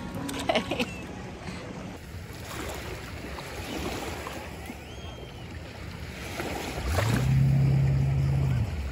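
Small lake waves washing onto a sandy shore, with wind buffeting the microphone. Near the end a low drone rises in, holds steady for about a second and a half, then falls away; it is the loudest thing here.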